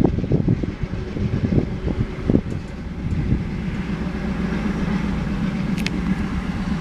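Loaded ore train passing: its car wheels knock and clatter on the rails for the first couple of seconds, then the sound settles into a steady low rumble.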